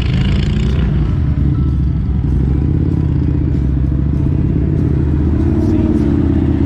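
Idling motorcycle engines with a steady low rumble as traffic passes close by; near the end a flatbed semi-truck drives past, its engine and tyres rising over the idle.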